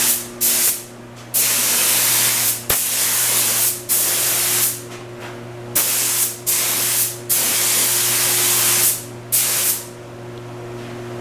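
Paint spray gun hissing in a series of short trigger bursts, each about a second long with brief pauses between, laying on a first coat of paint over a steady low hum.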